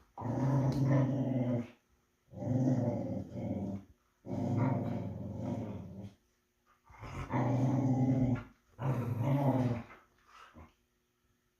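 Dog growling in play during a play fight: five long, low growls of one to two seconds each with short pauses between them, then a couple of faint short sounds.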